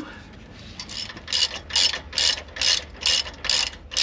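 Hand socket ratchet clicking in quick, even strokes, about two a second, starting about a second in, as a bolt on the new sway-bar end link is run in.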